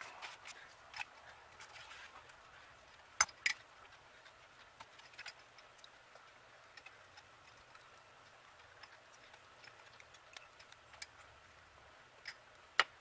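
Scattered light clicks and knocks of metal parts being handled and fitted together while a Delco-Remy housing and end frame are reassembled. The sharpest knocks come about three seconds in and again near the end.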